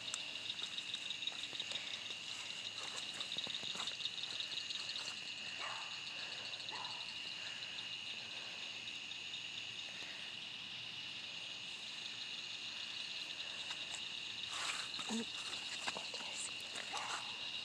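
Steady night chorus of calling animals: a high, rapidly pulsing trill that never lets up. Brief rustling and clicks break in near the end.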